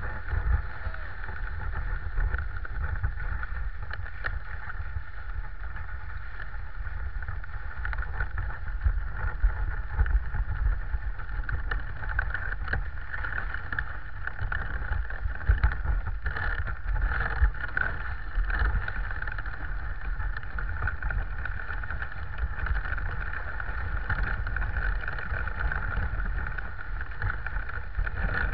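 Dog sled moving over snow: a steady scraping hiss from the runners on the trail, with low rumble and occasional knocks from the sled itself.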